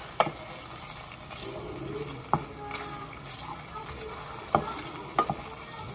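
A wooden spoon stirring pasta in a large stainless steel pot of boiling water, knocking sharply against the pot's side a few times, over a steady hiss from the cooking on the stove.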